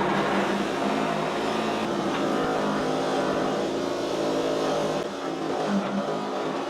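A motor starts suddenly and runs at a steady speed, with a low hum that drops out about five seconds in.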